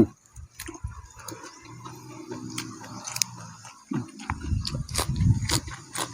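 A person chewing a mouthful of food close to the microphone, wet mouth sounds mixed with many short, sharp clicks.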